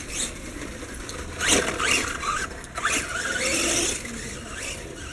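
Electric motor of a Blackout XTE Pro RC monster truck whining as it drives over grass, revving up and down in short sweeps, loudest about a second and a half in and holding a high whine near the end.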